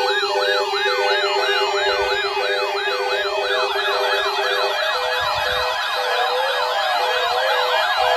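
Electronic sirens in a fast yelp, about three rising-and-falling sweeps a second, with a second yelp joining out of step partway through. Under them, a steady low tone runs until about two-thirds of the way in, and a rapid beeping tone continues throughout.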